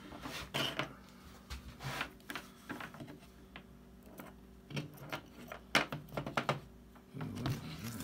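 Scattered small clicks and taps of multimeter test probes and a small dryer thermal fuse being handled on a tabletop while the fuse is checked for resistance.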